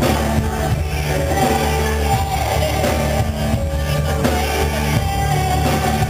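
Live pop music played loud by a band with keyboards and a steady heavy bass, with women singing into microphones over it.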